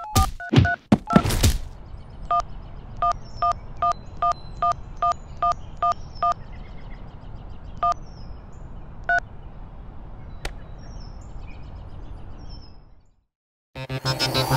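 Mobile phone keypad tones: a short two-tone beep with each key press as a text message is typed, first a quick run of about a dozen beeps at roughly three a second, then two more spaced apart. In the first second or two there are a few loud knocks, faint birds chirp over a steady background hum, and the sound cuts out near the end.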